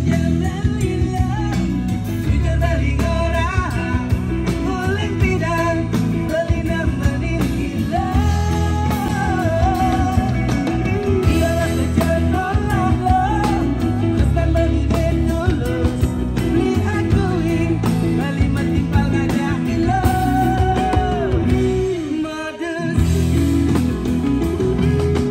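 A rock-pop song: a singer's melody over a full band of electric guitars, bass, keyboard and drums. It starts abruptly and plays on steadily, with a brief dip near the end.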